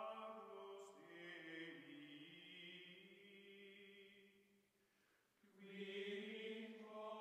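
Soft outro music of long, held, choir-like sung notes. The sound fades about four to five seconds in, and a new note swells up near the end.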